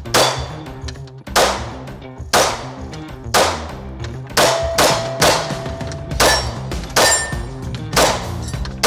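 Kiger 9c Pro 9mm pistol firing shot after shot at a steady pace, about one shot a second, with background music underneath.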